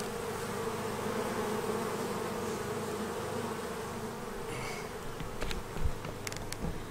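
A swarm of bees buzzing in flight, thick in the air: a steady, many-voiced hum.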